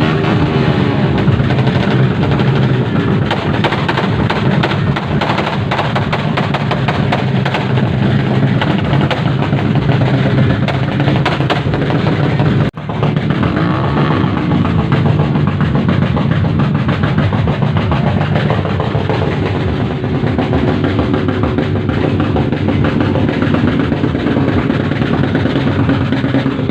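Loud music with a drum beat, briefly cut off about halfway through.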